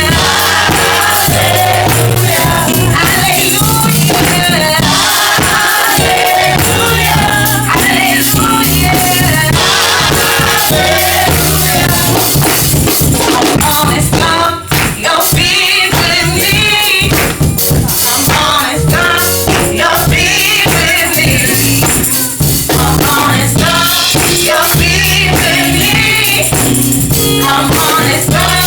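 Live gospel praise music: a group singing together over a band, with a steady bass line.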